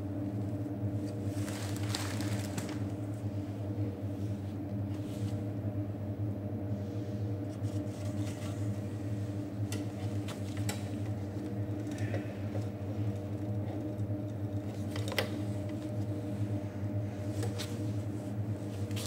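Steady machine hum, like a fan or motor running, holding several fixed tones throughout. About two seconds in there is a short rustle, and a few light clicks follow later.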